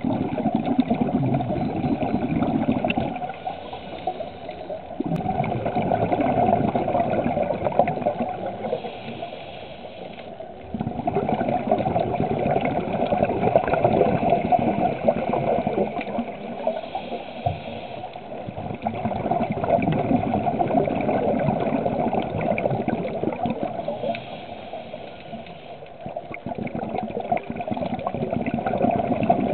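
Scuba diver's regulator breathing underwater: exhaled bubbles gurgling in long rushes every several seconds, with quieter inhalations between.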